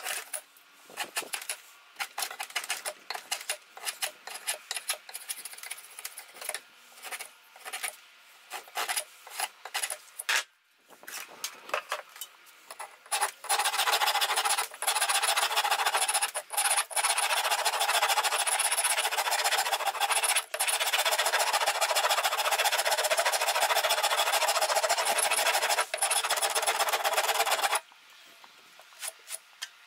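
Rasp and file scraping along a wooden axe handle. Irregular short strokes at first, then about fourteen seconds of dense, continuous rasping that stops abruptly near the end.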